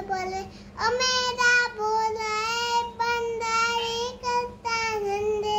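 A young boy singing a devotional bhajan solo and unaccompanied, in long held high notes with a slight waver. He takes a short breath about half a second in, then carries on with the melody.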